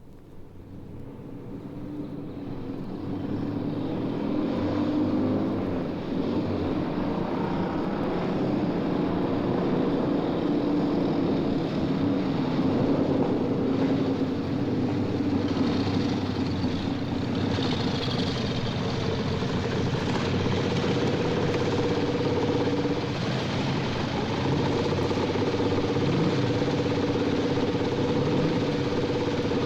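Motorcycle engine running, recorded as a vintage sound effect. It swells up over the first few seconds, then holds steady with small rises and falls in pitch.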